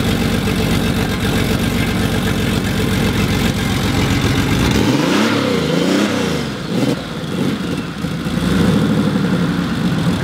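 Modified single-turbo Porsche 911's air-cooled flat-six idling with a deep, lumpy note at the exhaust. About halfway through the throttle is blipped twice, the revs rising and falling quickly each time, before it settles back to idle.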